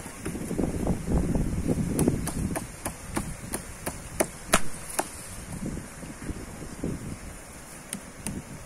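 A black plastic plant pot being tipped and handled over a larger pot while potting soil rustles. A run of sharp plastic clicks and knocks comes about three a second, the loudest two about halfway through.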